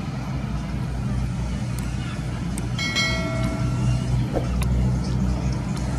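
A low, steady engine rumble, with a short pitched tone lasting about a second, about three seconds in.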